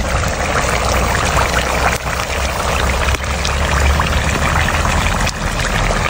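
Steady rush of running water over a low rumble.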